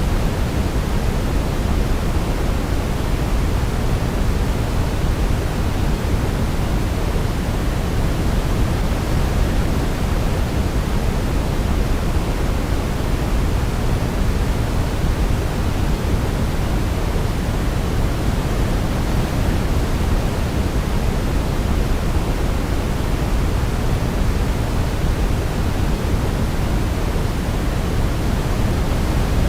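Steady sleep noise, a constant hiss weighted toward the low end, like pink noise, with no melody or change.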